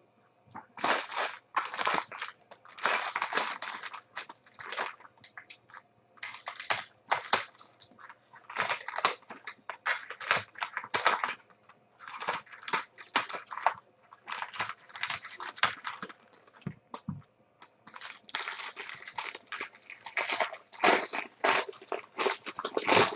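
Plastic wrappers of sealed trading-card packs crinkling and rustling in irregular bursts as they are handled, cut open with scissors and the cards pulled out.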